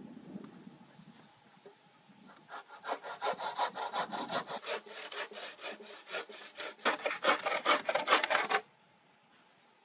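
Hand saw cutting through a dead round-wood log with quick back-and-forth strokes, about three a second. The sawing starts a couple of seconds in and stops suddenly near the end.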